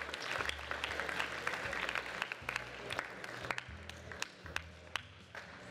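Seated crowd of students applauding, with a dense patter of many hands and single claps standing out; the clapping thins out after about three and a half seconds.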